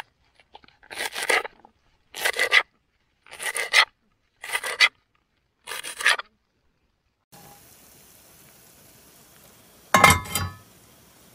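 A kitchen knife slicing through green onion stalks against a plastic plate, one scraping cut about every second, six times. After a short pause, near the end there is a single loud metallic clatter as a frying pan is set down on a cast-iron burner.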